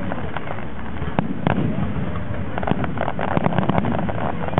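Aerial fireworks bursting: two sharp bangs a little over a second in, then a rapid run of crackling pops in the second half.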